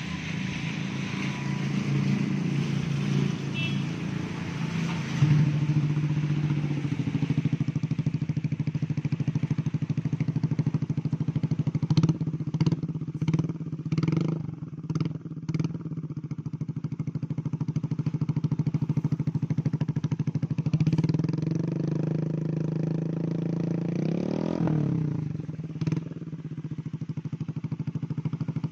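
Yamaha Mio GT scooter's single-cylinder four-stroke engine running steadily through a short aftermarket exhaust fitted with a dB killer silencer insert, turning the rear wheel on the stand. About halfway there is a quick run of short sharp bursts, and later one rev rises and falls.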